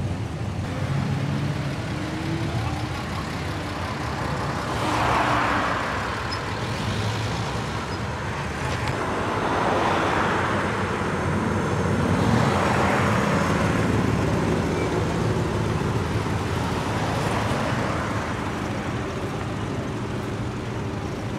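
A line of cars driving past one after another, each passing with a swell of tyre and engine noise that rises and falls, three of them clear. A steady low engine hum runs underneath.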